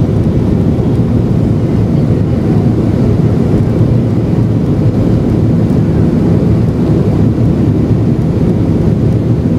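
Steady, loud low rumble of an airliner's engines and rushing air heard inside the cabin, shortly after takeoff.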